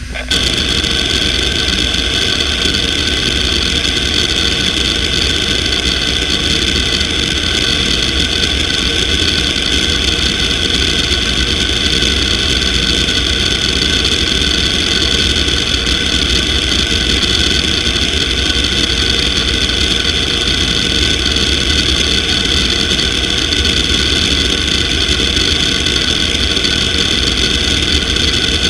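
Fujitsu MBA3300RC 15,000 rpm SAS hard drive running a random seek test: a dense, rapid, continuous chatter of head-actuator seeks over the steady high whine of the spindle. The seeking starts just after the beginning and is exceptionally loud for a hard drive.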